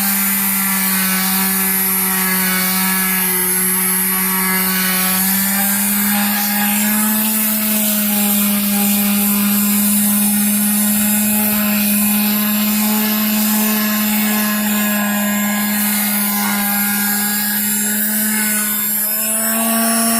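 Electric sander running steadily against an epoxy-filled wooden railing repair, its motor hum rising slightly in pitch about five seconds in and again near the end.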